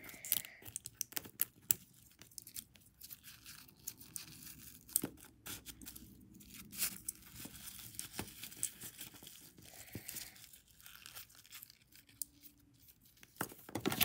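Faint crinkling and rustling of tissue paper and thin plastic under the fingers as a rubber band is wrapped around them, with scattered small clicks.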